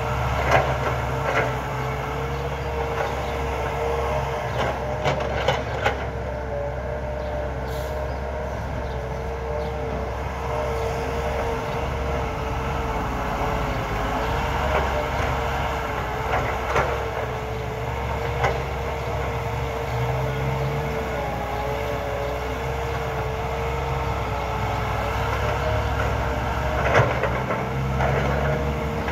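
CAT hydraulic excavator running steadily under load as it loads a dump truck: a low engine drone with a whine that wavers slightly in pitch. Short sharp knocks come now and then, about a second in, around the middle and near the end.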